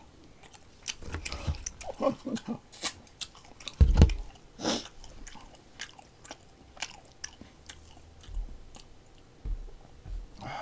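Close-up chewing and biting of a man eating bossam, boiled pork with side dishes: wet mouth noises and many small clicks, with a loud low thump about four seconds in.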